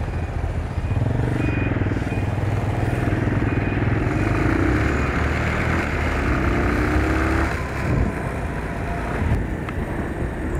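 Bajaj Pulsar 220 motorcycle riding under way: the single-cylinder engine hums steadily under wind and road noise, its pitch climbing a little around the middle as it accelerates. A faint beep repeats about twice a second during the first few seconds.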